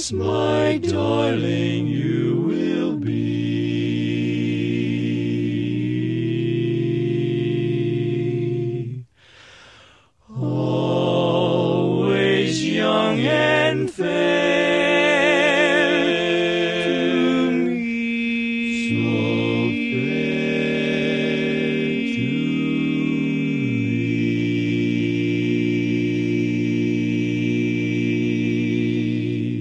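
Barbershop quartet singing unaccompanied in close harmony: long held chords with vibrato, a short break about nine seconds in, then the closing phrases ending on a final chord held for several seconds before it stops.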